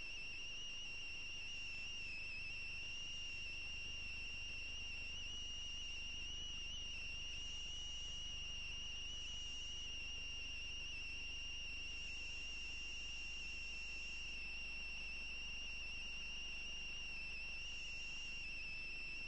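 Steady high-pitched whine with a fainter tone an octave above it, slightly wavering, over a low hum, picked up by the PTZ security camera's own microphone.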